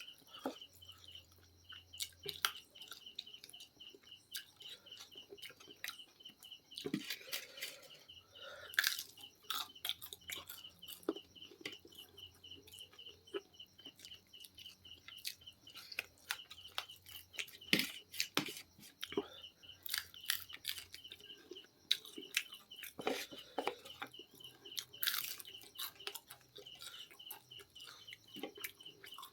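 Close-up chewing and crunching of fried chicken, with irregular sharp crunches and mouth clicks. Behind it runs a steady, rapid, high-pitched chirping.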